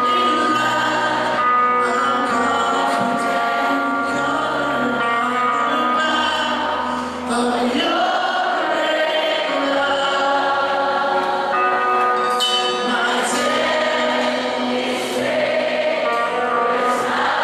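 Live Christian worship music: a band playing under many voices singing together, with steady bass notes and a few cymbal crashes in the second half.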